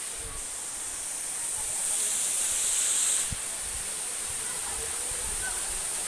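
Waterfall rushing: a steady, even hiss of falling water. About two seconds in it grows louder for a second or so, then drops back suddenly with a low thump.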